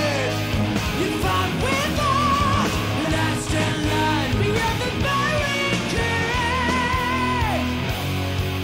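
Heavy metal band playing live: distorted electric guitar, bass and drums with a male singer. Long held notes waver in pitch and slide down at their ends, one a little after a second in and another lasting nearly two seconds near the end.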